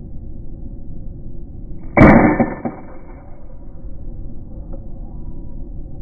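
FX Dreamline Lite .177 PCP air rifle firing a single shot about two seconds in: a sharp crack that dies away over about a second, over steady low background noise.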